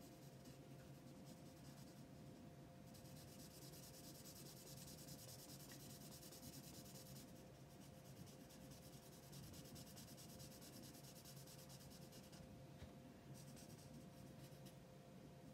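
Faint scratchy rubbing of a felt-tip alcohol marker nib stroking back and forth on paper, laying a second coat over streaky colour, over a faint steady hum.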